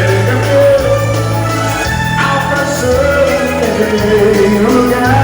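Live band music: a waltz with held bass notes changing about once a second under a wavering melody line, between sung verses.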